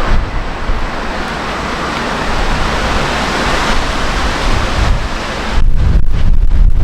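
Wind on the microphone: a steady broad rush, then heavy low buffeting that gets louder about two-thirds of the way through.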